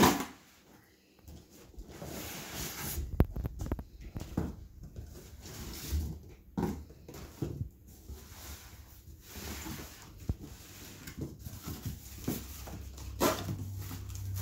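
Cardboard shipping boxes being handled and their flaps pulled open, making irregular knocks and rustles of cardboard and the foil-wrapped packing inside.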